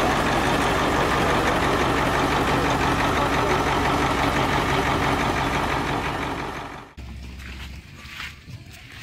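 Turbocharged Caterpillar diesel engine in a rat rod truck running steadily and loudly, with a fast low pulsing. About seven seconds in it fades and cuts off, leaving a much quieter low rumble.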